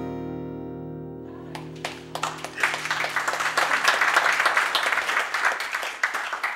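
A final strummed acoustic guitar chord rings out and slowly fades. About a second and a half in, an audience breaks into applause, and the clapping grows and carries on over the dying chord.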